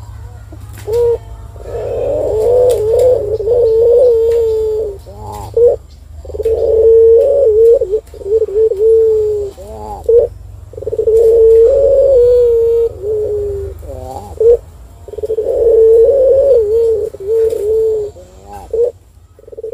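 Collared dove (puter) cooing: four long, wavering coos at one pitch, each lasting a few seconds and ending in a few quick rising notes, with short pauses between them.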